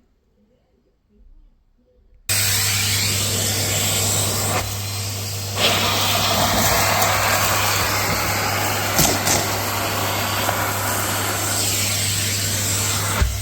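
Numatic Hetty cylinder vacuum cleaner switching on about two seconds in and then running steadily with a constant low hum, its sound dipping briefly once and broken by a few clicks as the nozzle is worked.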